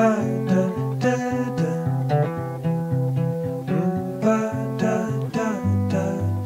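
Instrumental guitar music: plucked notes struck about once a second over a steady bass line, some notes sliding up in pitch.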